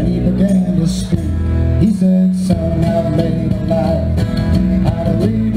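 Background music: a country-style song led by guitar, with a steady rhythm.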